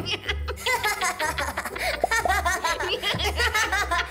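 Cartoon background music with a pulsing bass beat and many quick, short high notes.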